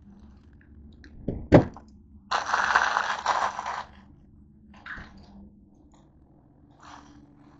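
Handling noise as the camera is picked up and moved: a sharp knock about a second and a half in, then a burst of noise lasting about a second and a half, and a few faint taps after.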